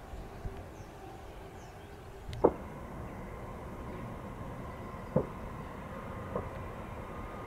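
Distant train approaching: a low rumble, with a faint steady whine coming in about two and a half seconds in. A few sharp clicks stand out over it, the loudest at the moment the whine starts.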